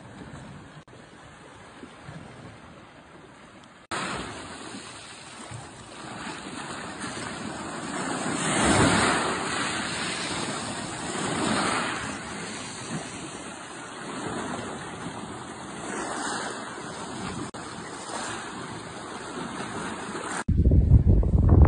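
Sea waves breaking and washing on a rocky shore, swelling and easing every few seconds. Near the end a loud low rumble cuts in over them.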